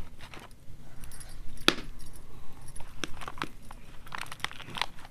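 Bangles on a wrist clinking and jangling in short irregular clicks, the sharpest about a second and a half in, as hands pat and spread soft dough over sal leaves.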